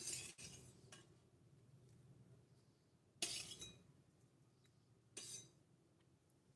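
A tiny steel ladle, held in tweezers, clinking and scraping against a miniature stainless-steel pot three times: right at the start, a longer scrape a little past three seconds, and a short clink just past five seconds.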